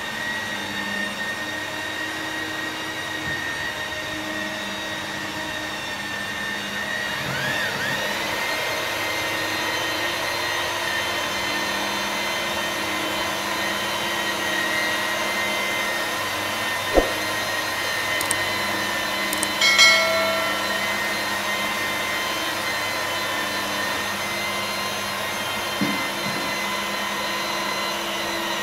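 Electric angle grinder with a felt polishing wheel running steadily, buffing a glass windshield; a steady motor whine, with one sharp knock partway through.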